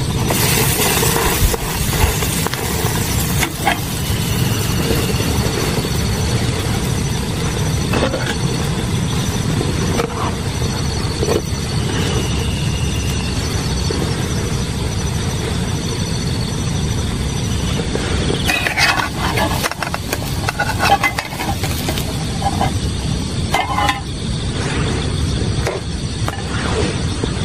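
A canister gas stove's burner running with a steady roar under a grill pan. A metal spatula clinks and scrapes on the pan now and then, most often about two-thirds of the way through.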